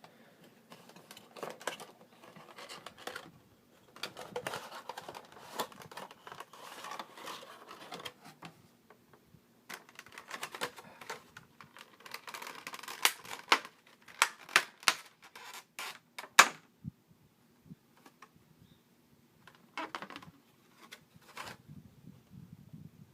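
A toy's cardboard box and plastic packaging being opened and handled by hand: rustling and scratching with sharp clicks and crackles, loudest in a quick run of clicks a little past the middle.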